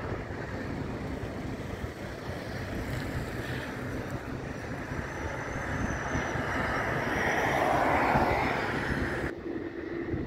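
Distant jet engines of a Qantas Boeing 787 rolling along the runway, heard as a steady rushing noise mixed with wind on the microphone. The noise swells louder about eight seconds in, then changes abruptly shortly before the end.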